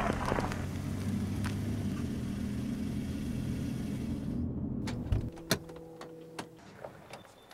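Chevrolet Corvette C5's V8 idling with a steady low rumble, cutting off abruptly about five seconds in as it is switched off. A few sharp clicks follow.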